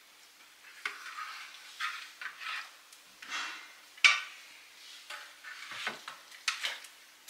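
Kitchen dishes and utensils being handled: irregular scraping and clattering, with one sharp clink about four seconds in.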